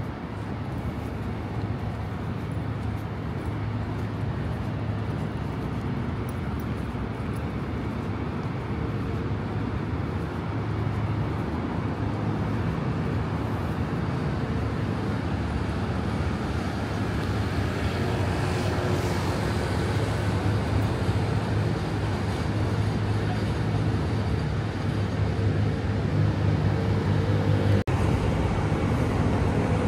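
Steady city road traffic: vehicles running on surrounding busy roads, a low engine hum that grows gradually louder, with a vehicle's pitched engine drone near the end.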